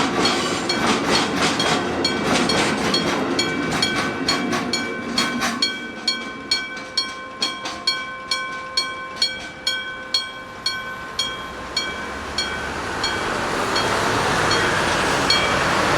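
Electric gong-type railroad crossing warning bell, a hammer striking a metal gong in quick, even strokes that ring on. For the first five seconds or so it sounds over the rumble of a passing freight train. The strikes stop about three-quarters of the way through, and a rushing noise rises near the end.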